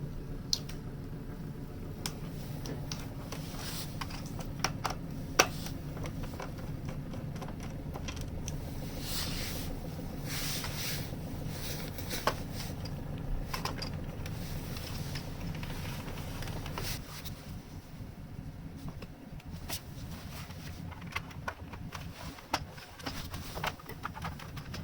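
Scattered clicks, taps and scraping from a Commodore 64's plastic case being handled and its bottom screws undone, over a steady low hum that fades out about two-thirds of the way through.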